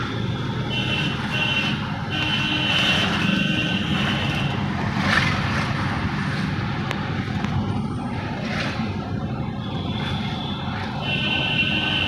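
Road traffic running steadily, with a high electronic beeping tone that sounds on and off in stretches of about half a second to two seconds.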